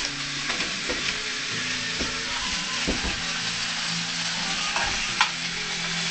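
Sausages sizzling steadily as they fry in a pan, with a few sharp clicks and knocks, the loudest about five seconds in.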